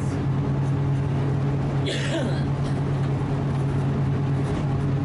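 Steady low hum and rumble of a rail vehicle running, with a brief louder hiss-like noise about two seconds in.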